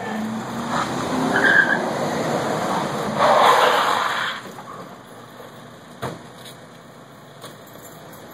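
Car tyres skidding as cars pull up sharply. The noise builds over the first few seconds to a loud skid about three seconds in, then drops away, with a single sharp knock later on.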